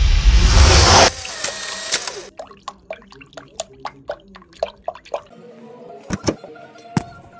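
Rushing water that cuts off about a second in, then water dripping into a drain in a quick run of drips, with a few last drips near the end.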